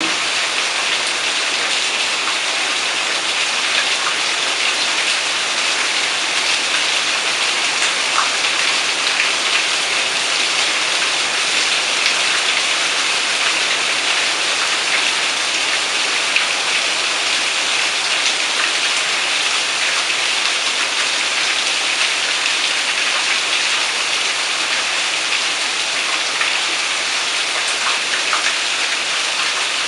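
Steady rain falling, a dense even hiss of drops on surfaces with scattered individual drop ticks.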